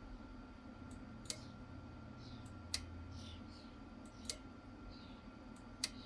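Sharp clicks, about one every second and a half, over a faint steady hum and a thin high tone.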